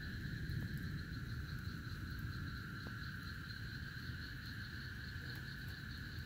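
Steady chorus of night insects, crickets or the like, chirring without a break, over a low rumbling noise.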